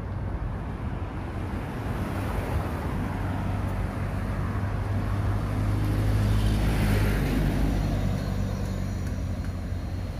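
Street traffic: a motor vehicle passes close by. Its engine hum and tyre noise build to a peak about six to seven seconds in, then fade.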